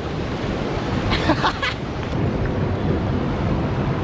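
River water rushing steadily, with wind buffeting the microphone.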